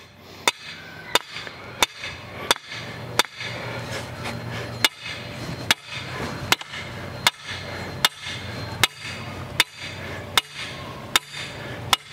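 Hammer striking the top of a heavy-duty metal fence post, driving it into the ground: about fifteen sharp metallic blows at a steady pace of roughly one every three-quarters of a second, with a slightly longer pause about four seconds in.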